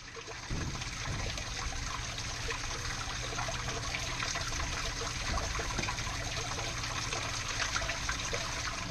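Water running and splashing steadily from a crack in a live 6-inch iron water main.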